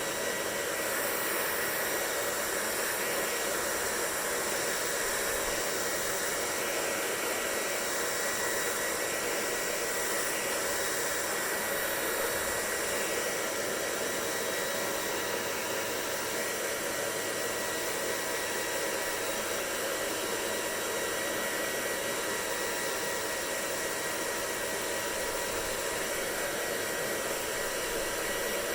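Hair dryer running steadily: an even blowing rush with a thin, steady whine.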